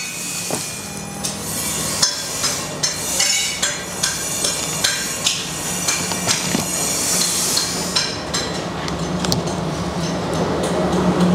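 Hammer blows striking metal in a knife forge: uneven strikes, roughly one or two a second, over a steady low hum.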